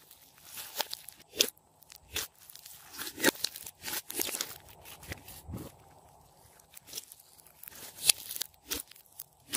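Hands squeezing and folding a large batch of slime with clay and makeup mixed in: irregular wet crackles and pops, with a quieter patch past the middle and one loud pop near the end.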